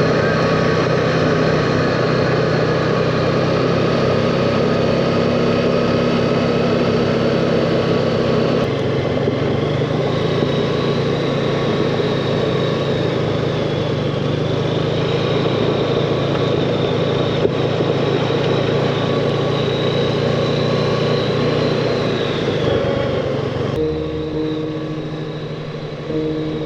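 Four-wheeler (ATV) engine running steadily under way, with a small change in its pitch about a third of the way in.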